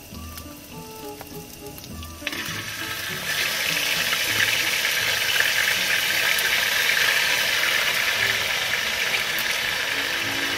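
Pork belly frying on a griddle. About two seconds in, spoonfuls of kimchi land on the hot griddle and it breaks into a sudden loud sizzle, which grows stronger a second later and then holds steady.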